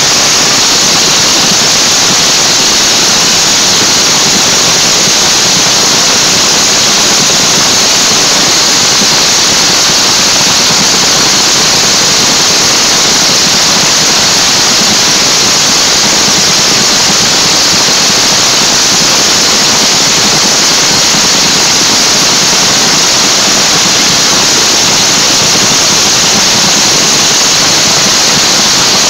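Supercharged V8 engine of a dragster running on a pit warm-up, heard as a loud, steady wash of noise that overloads the phone's microphone.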